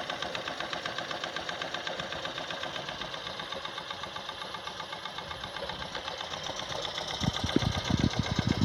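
Jensen Model 50 toy steam engine running steadily at governed speed, with a rapid even beat and the little clicking of the boiler feed pump's check ball. A few low thumps come near the end.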